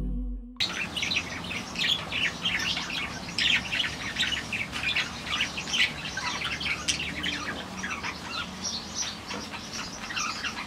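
Budgerigars chattering: a steady stream of short, quick, overlapping chirps that starts about half a second in.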